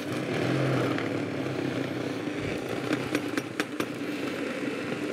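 Small electric food chopper switched on and running steadily, its blade blending ground almonds and egg into a thick almond paste, with a few light clicks from the contents near the middle.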